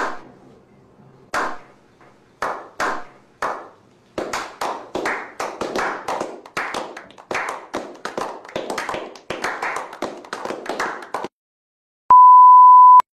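Slow clap: one man claps a few times, slowly and spaced out, then about four seconds in a small group of men joins in with steady, faster clapping that stops abruptly. Near the end a steady high beep sounds for about a second: the television colour-bars test tone.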